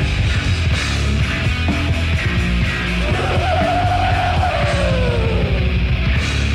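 Death metal band playing live, dense and heavily distorted, with a pounding low end. About halfway through, a long held note slides slowly down in pitch.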